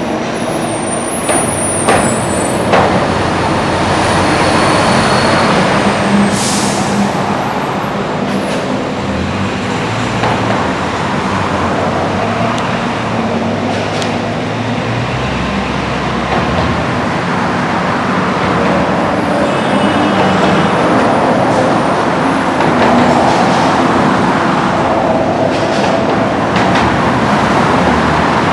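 Metro-North commuter train running at a station, a loud, steady rumble with a few brief high squeals and some clicks.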